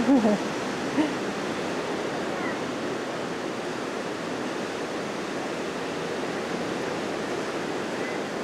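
Steady rushing outdoor noise, with two short voice calls near the start, the second about a second in.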